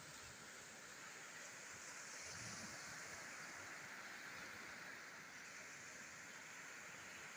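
Faint sea surf washing on the shore, a steady hiss that swells slightly about two seconds in.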